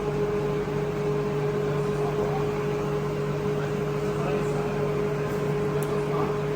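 Steady hum of a running handheld laser welding and cleaning machine, with one constant mid-pitched tone over a low drone, and a faint click near the end.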